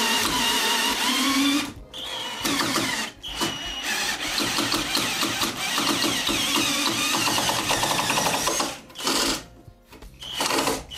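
Cordless drill-driver backing a long 180 mm wood screw out of a wooden block. The motor runs in long stretches, with two short pauses in the first few seconds. It stops about two seconds before the end, then gives one short final burst.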